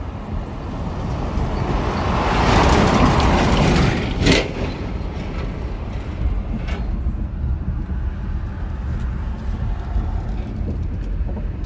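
Car driving slowly, with a steady low rumble of engine and road. A rush of noise swells and fades a couple of seconds in, and there is a sharp knock about four seconds in.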